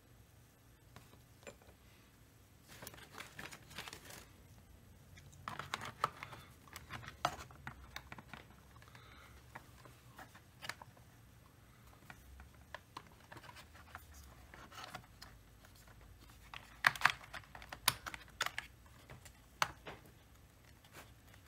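Irregular light clicks, taps and small rattles of plastic and metal chainsaw parts being handled by hand, with a denser run of sharper clicks about three quarters of the way through. The saw is not running.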